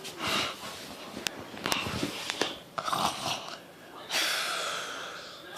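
A child imitating snoring: a few breathy noises, the longest starting about four seconds in and trailing off, with a couple of light clicks between them.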